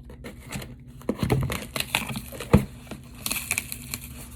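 Shipping packaging crinkling and rustling as a mailed package is handled and pulled open, with irregular small clicks and one sharp knock about two and a half seconds in.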